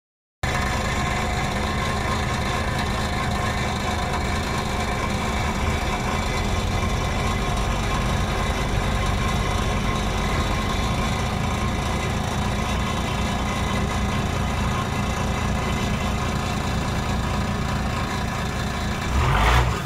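A boat engine running steadily, heard from aboard the moving boat, over the rush of water along the hull. Near the end there is a brief, louder rush of sound.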